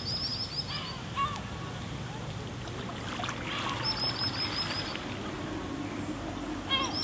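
Birds calling over calm sea water lapping gently on a pebble shore: a rapid high series of short notes lasting about a second, heard near the start and again about four seconds in, with a few lower calls between.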